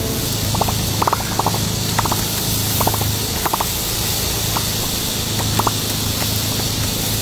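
Oil sizzling on a hot cast-iron takoyaki pan as it is swabbed into the wells, a steady hiss broken by small crackling pops every half second or so.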